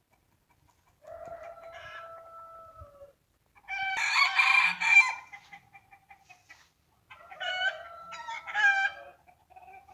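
Roosters crowing: three long crows in turn, starting about a second in, at about four seconds and at about seven seconds, the middle one loudest.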